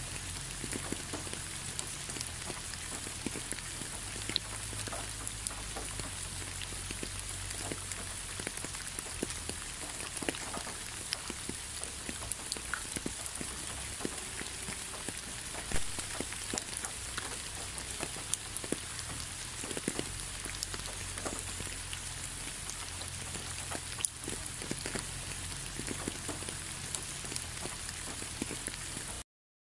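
Steady rain falling, with many individual drops heard as sharp ticks over an even hiss and a few louder drops among them. The sound cuts off suddenly just before the end.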